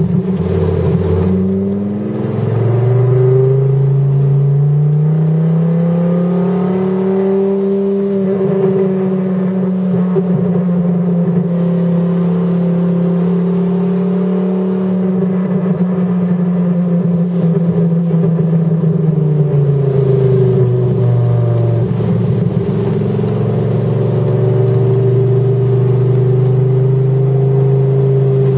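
Dodge Viper GTS V10 engine heard from inside the cabin. After a short dip about two seconds in, the revs climb for several seconds and hold steady. They drop back about two-thirds of the way through and settle at a lower, even note.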